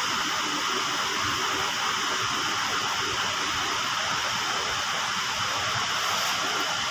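A steady, even hiss that holds at one level, with no knocks, rhythm or voices in it.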